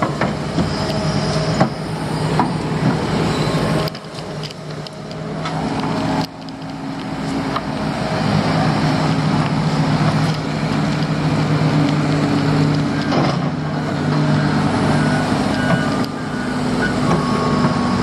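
Heavy earthmoving machinery's diesel engine running under load. It dips briefly twice in the first few seconds, then rises and holds steady, with occasional sharp knocks.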